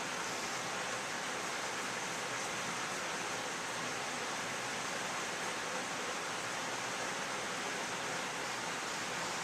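Steady, even hiss with no distinct tool or engine sounds.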